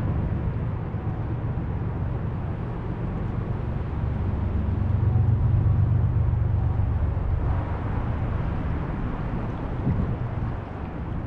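River water rushing over rocky shallows, with a steady low wind rumble on the microphone.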